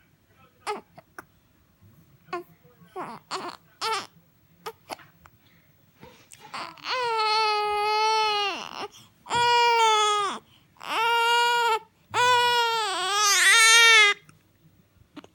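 Baby crying on waking: a few short fussy sounds at first, then, about halfway through, four long high-pitched wailing cries.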